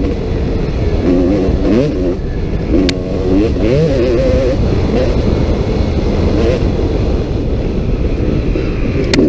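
Kawasaki KX250 dirt bike engine at racing speed, its pitch sweeping up and dropping back again and again as the throttle is opened and closed through the gears, over a steady low rush of wind and trail noise. A sharp click about three seconds in.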